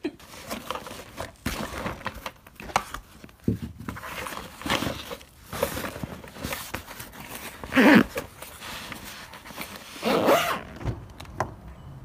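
Zippered nylon storage bag of a handheld car vacuum being handled: rustling and scraping with a zipper being worked, in a string of short bursts, the loudest two in the second half.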